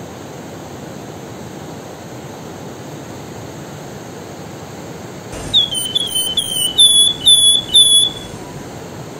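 Steady rush of a fast river, then about five seconds in a caged wergan jawa (flamboyan) sings a quick phrase of about seven clear, high whistled notes. Each note slides downward and the phrase ends about a second before the end.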